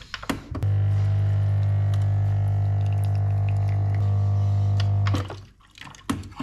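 Lavazza A Modo Mio capsule espresso machine brewing: a click, then its pump buzzing steadily as the espresso pours, stopping abruptly about five seconds in. A few light knocks follow near the end.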